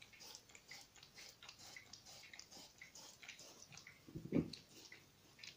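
Dog licking a plastic board, quick wet laps about three a second, with one louder low bump about four seconds in.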